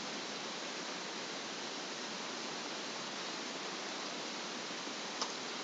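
Steady hiss of the voice-over recording's noise floor, with one faint click near the end.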